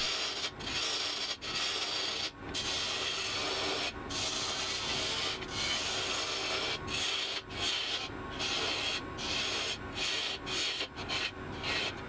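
A turning tool cutting a spinning walnut spindle on a wood lathe: a steady scraping hiss of shavings coming off, broken by brief pauses every second or two.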